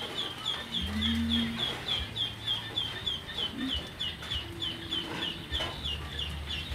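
A steady run of short, high chirps repeating about four times a second, from a small animal such as a bird, with a brief low call about a second in.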